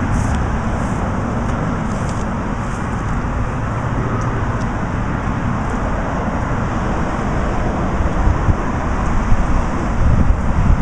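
Steady hum of road traffic, with a few faint ticks up high.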